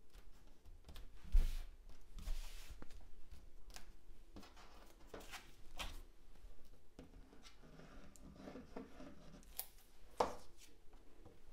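Paper and cardstock being handled on a cutting mat: scattered rustles, taps and light knocks, with a dull thump about a second and a half in.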